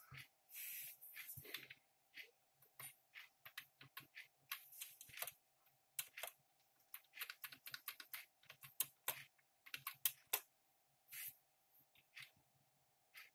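Computer keyboard keys pressed one at a time in an irregular run of short clicks, used to step through BIOS setup menus and change a setting, with a brief rustling noise near the start. A faint steady electronic tone sits underneath.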